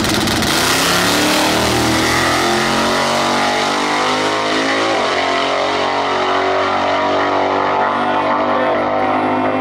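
Boosted drag-racing Chevy S-10 Blazer launching hard and pulling down the strip at full throttle. The engine note climbs in pitch, drops at each gear change and climbs again, with a clear shift about five seconds in.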